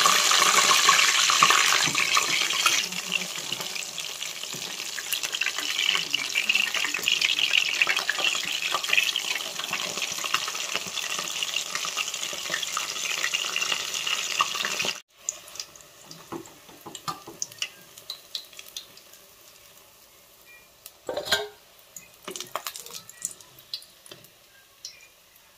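Batter-coated pumpkin flower fritters deep-frying in mustard oil in a kadai: a loud, steady sizzle and crackle, with a wooden spatula scraping as they are turned. About fifteen seconds in, the sizzle cuts off sharply. Only faint scrapes and a few taps of the spatula follow as a fritter is lifted out.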